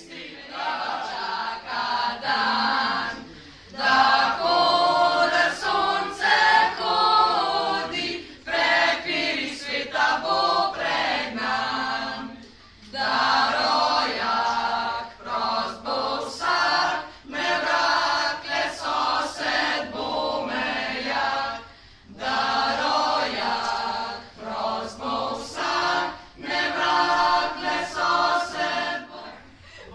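A small group of mixed voices singing together without instruments, in phrases broken by short pauses.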